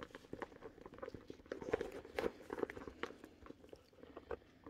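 Irregular small clicks, taps and rustles of a wallet being pushed into a leather crossbody bag and the bag being handled.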